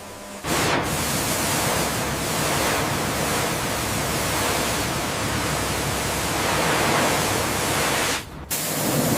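High-pressure water jet spraying in a steady hiss, starting about half a second in, cutting out briefly near the end and then starting again.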